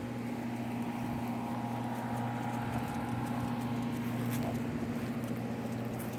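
A steady low mechanical hum, with faint light ticks and taps over it.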